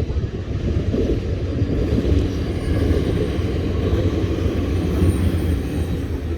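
Pesa 730ML diesel multiple unit passing close by: a loud, steady rumble of its diesel engines and wheels on the rails.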